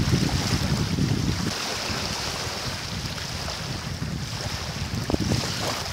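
Strong wind buffeting the microphone, with small choppy waves lapping on a gravel shore. The low wind rumble is heaviest in the first second and a half, then settles to a steadier rush.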